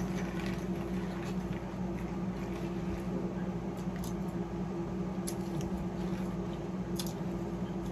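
People eating cereal with spoons from bowls: soft chewing and spoon scrapes, with a few sharp clicks about four, five and seven seconds in. A steady low hum runs underneath and is the loudest thing throughout.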